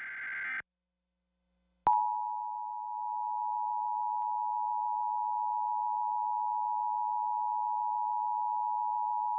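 The end of an Emergency Alert System SAME header data burst cuts off just after the start. After a gap of silence, the EAS two-tone attention signal (853 and 960 Hz together) comes in about two seconds in and holds steady.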